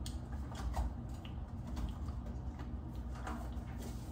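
Pancake batter cooking in a buttered frying pan: faint, irregular crackles and pops over a low steady hum.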